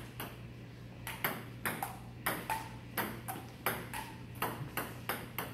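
Table tennis rally: the ball clicking off the paddles and bouncing on the table in quick alternation, about three sharp hits a second, over a low steady room hum.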